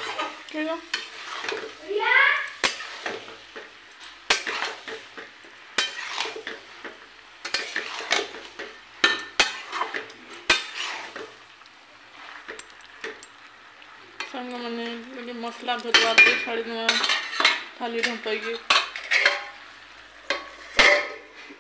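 Metal spatula stirring flat beans frying in an aluminium kadai: repeated scrapes and clinks against the pan over a sizzle, some strokes squealing on the metal.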